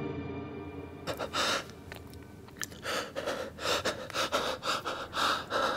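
Music fading out, then a man breathing hard through an open mouth in quick, ragged gasps, a few a second, in fright.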